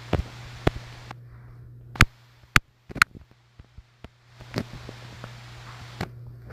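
Sharp taps and clicks on a phone handled while drawing on its touchscreen, picked up by the phone's own microphone, with two stretches of soft hiss and a steady low hum.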